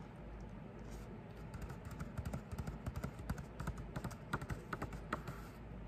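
Fingers handling the paper pages of a picture book held close to the microphone: a run of quick, irregular light taps and clicks starting about a second and a half in and stopping near the end.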